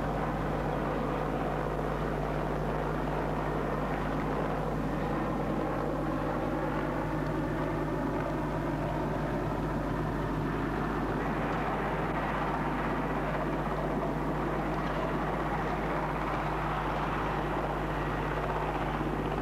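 Helicopter in flight: the steady, continuous noise of its engines and rotor, with a constant low hum underneath.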